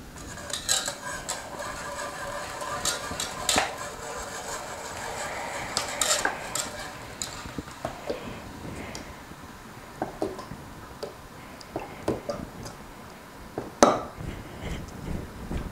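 Whisk stirring and scraping in a pot of Hennessy barbecue sauce, with scattered sharp clinks against the pot, the loudest about 14 seconds in.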